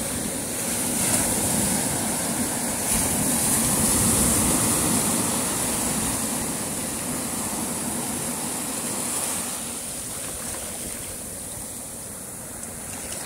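Sea surf washing in, a noisy rush that swells over the first few seconds and then slowly fades away.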